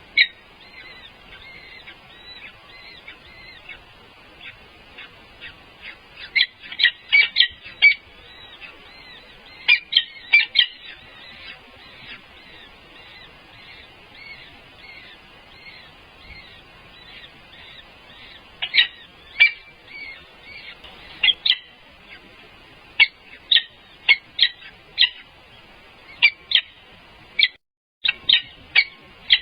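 Eagles calling: a steady stream of faint high-pitched chirps, with clusters of louder, sharp chirping calls. The sound cuts out for a moment near the end.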